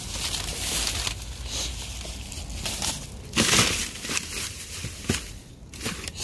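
Plastic grocery bags rustling and crinkling as they are handled, in irregular bursts, loudest about three and a half seconds in.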